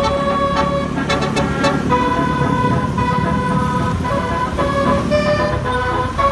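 Bus 'telolet' musical air horn playing a tune of held notes that change pitch every second or so, over the rumble of the bus engine.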